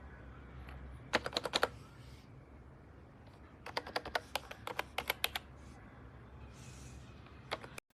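Typing on a wireless keyboard with vintage-style round keycaps, in a quick run of key clicks a little after one second, a longer run in the middle, and two more clicks near the end.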